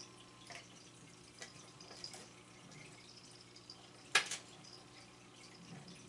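Faint scattered light clicks and taps as cats paw at a cat toy on a tile floor, with one sharper click about four seconds in, over a low steady hum.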